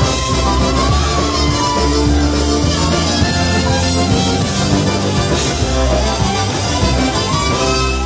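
Live polka band playing: trumpet lead over piano accordion, concertina and electric bass with a steady beat. The tune comes to its end right at the close.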